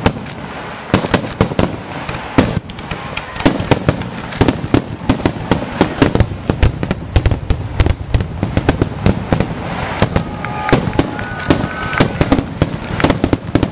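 Aerial fireworks shells bursting in rapid succession: sharp bangs several a second with no letup.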